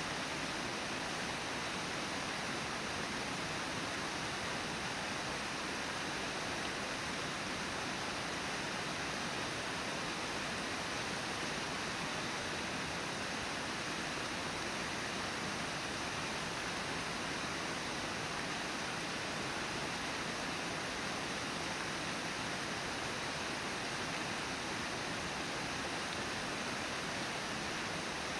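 Steady, unbroken rush of Brooks Falls, river water pouring over the falls.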